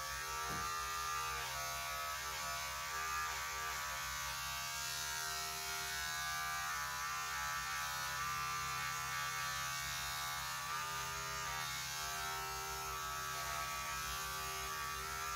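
Electric hair clippers running with a steady buzz as they shave the side of a head.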